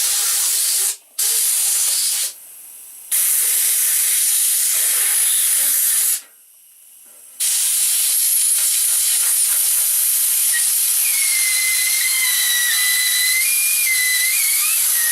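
Compressed air hissing from an air blow gun in several long blasts, with short breaks, as it is forced between a rubber handlebar grip and the throttle tube to break the grip's glue. From about two-thirds of the way through, a wavering whistle joins the hiss as air escapes past the ballooned grip.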